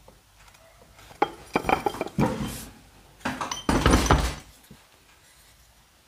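Metal scooter parts being handled and set down: two spells of clattering knocks and clinks, some with a short metallic ring.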